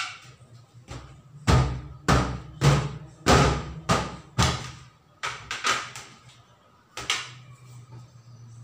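Large latex balloon being slapped and bounced between the hands: a run of hollow thumps about every half second, loudest in the middle and thinning out toward the end.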